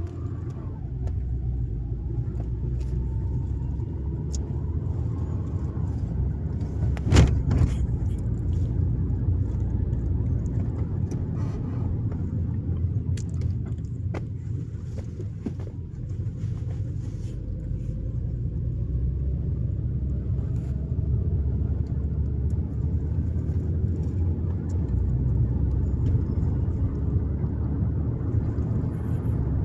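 2020 Toyota Avalon driving at low speed: a steady low road and engine rumble, with one sharp knock about seven seconds in. No rattle is heard now that the bracket at the intake manifold vacuum hose valve has been removed.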